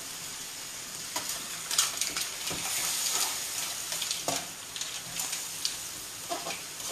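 Fresh pasta and mussels sizzling in a steel frying pan with a steady hiss, finishing their cooking in the mussel juices, while being stirred, with a handful of sharp clicks and knocks against the pan.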